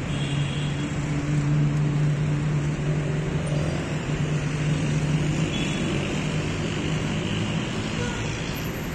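Road traffic on a busy city street, a steady roar of passing cars. A low steady hum runs through the first half and fades out about five and a half seconds in.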